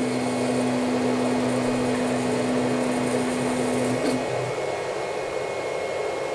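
Stepper motors of a Hypercube Evolution CoreXY 3D printer driving the print head in a homing move: a steady whine that stops about four seconds in as the carriage reaches its optical end stop. Under it runs the steady hiss of the printer power supply's fan, which is pretty noisy.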